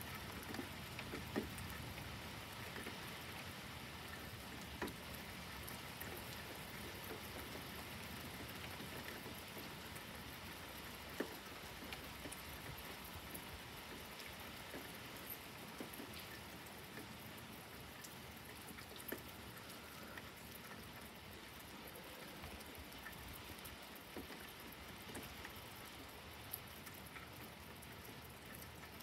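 Faint, steady rain falling, with a few sharp drops or taps standing out now and then.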